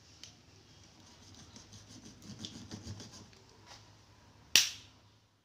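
Small blade scraping and cutting a thin clear plastic tube, a run of small scratches and clicks that gets busier in the middle. About four and a half seconds in comes one sharp knock, louder than anything else.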